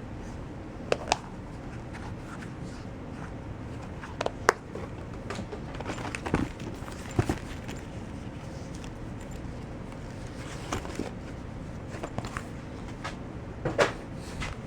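Small objects being handled and set down: a scattering of light clicks and knocks, with a steady background hiss.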